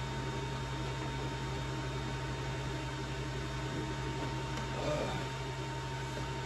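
Steady background hum with a thin high tone and hiss. About five seconds in comes a faint brief rustle as someone settles into the gaming chair.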